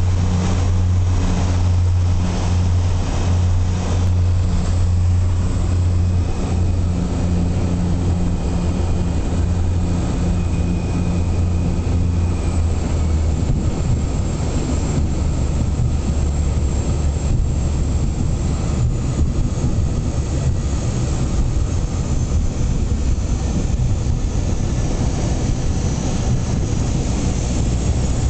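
Seaplane's propeller engines droning, heard inside the passenger cabin as the floatplane descends low over the water to land. The steady low drone changes in tone about halfway through.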